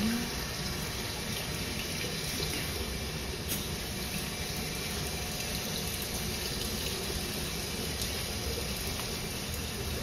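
Steady splashing of water falling through a tiered metal sculpture fountain.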